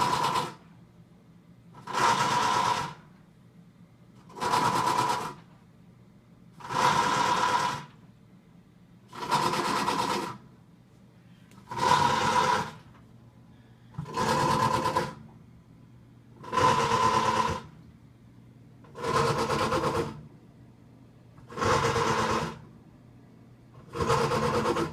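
Samsung WA45H7200AP top-load washing machine making a grinding noise in bursts of about a second, repeating every two and a half seconds or so, as the drive works. The owner says the blender-like grinding comes from the bottom of the brand-new machine when it tries to spin, a fault that stops it washing.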